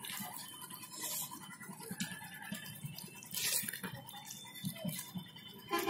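A hand mixing rice and fish curry on a banana-leaf plate: faint soft squishing and small clicks, with two brief rustles of the leaf.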